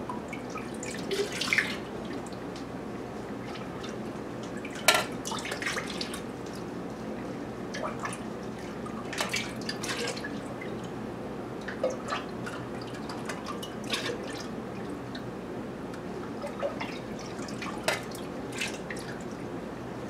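Melted candle wax being scooped from a pot and poured into an aluminum pouring pitcher with a metal utensil: liquid splashing and dripping, broken by scattered sharp taps of metal on metal.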